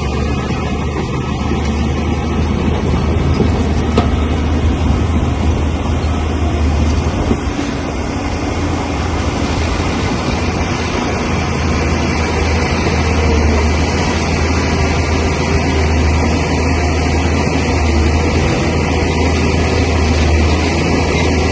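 Bulldozer's heavy diesel engine running steadily under work, with a strong deep hum.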